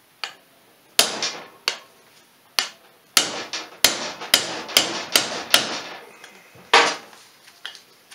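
Hammer striking a hand impact driver set in the stator screws of a Polaris 350/400 two-stroke engine case, to break the hard-to-shift screws free. About ten sharp metallic blows come at uneven spacing and fall quickest in the middle.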